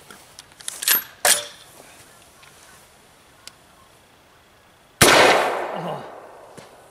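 A rifle-mounted can launcher fires, throwing a full beer can downrange: one sharp loud shot about five seconds in, with a long fading tail. About a second in, two short metallic clicks come first.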